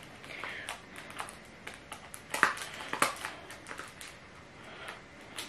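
Cosmetic packaging being handled as a small product is taken out of its box: scattered light clicks and rustles.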